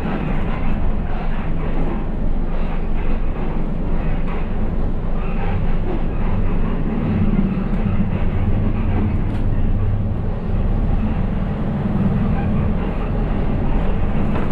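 City bus engine running with a steady low drone, with light rattles of the bus body, heard from inside the driver's cab while the bus drives.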